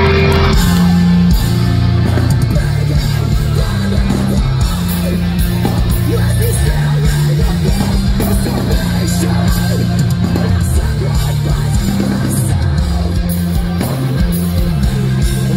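Live heavy band playing through a big outdoor PA, heard from the crowd: distorted electric guitars and bass moving through chord changes every second or two, over drums with cymbal hits.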